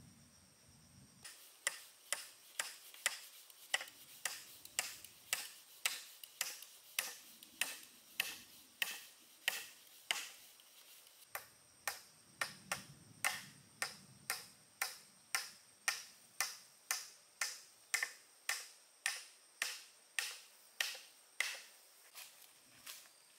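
Repeated chopping strikes of a hand tool hitting wood, a steady rhythm of about two sharp knocks a second, with a brief pause about ten seconds in.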